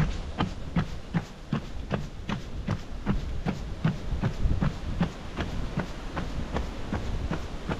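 A runner's footfalls on a wooden plank boardwalk, even and rhythmic at about two and a half steps a second, each with a hollow low thud, over a low rumble.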